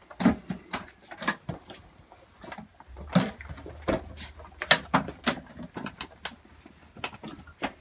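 Irregular clicks, taps and rattles of a scrog net's wire hooks and cord being hooked onto a grow tent's frame poles by hand. A low hum comes in about three seconds in.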